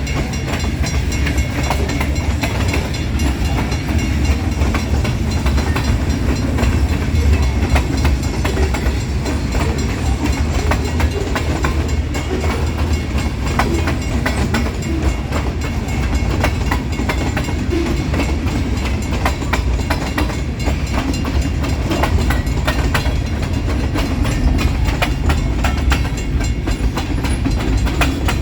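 A long freight train's cars rolling past: steel wheels clacking over the rail joints over a steady low rumble.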